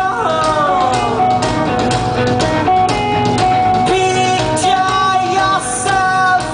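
Rock band playing live: electric guitars and drums, with singing. A long falling slide in pitch runs through the first second or two.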